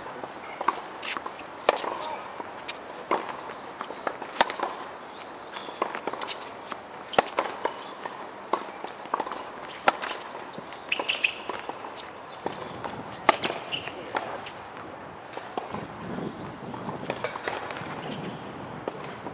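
Tennis rally on a hard court: sharp pops of the ball off the rackets and the court. The loudest strikes come every two to three seconds, and the rally stops about fifteen seconds in.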